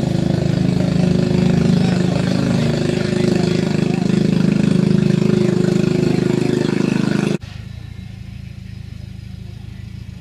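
Vintage tractor engine idling steadily and close by, with a fast even firing pulse. It cuts off suddenly about seven seconds in, after which a quieter engine idles in the background.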